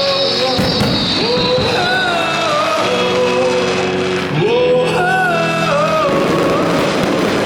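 Music with a sung melody, loud and steady, long held notes that glide between pitches. About six seconds in, a rushing noise builds underneath it.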